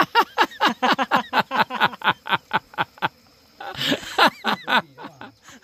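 A person laughing hard in a quick run of short, falling 'ha' sounds for about three seconds, then a breathier burst of laughter a little later.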